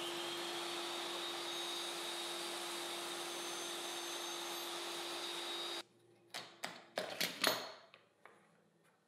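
Bench table saw running steadily with a constant hum and whine, which stops abruptly about six seconds in. A few sharp clicks and knocks follow as parts on the saw's aluminium fence are handled.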